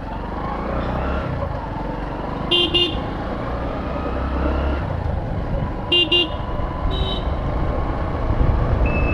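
Road traffic with a steady low motorcycle-engine and road rumble, and vehicle horns giving two short double toots, about two and a half seconds in and again about six seconds in, with a fainter toot just after.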